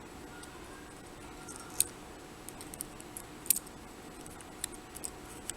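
Scattered light metallic ticks and clicks of tweezers and tiny brass lock pins being worked out of a disassembled padlock's pin chambers, the sharpest about two seconds in and again about three and a half seconds in.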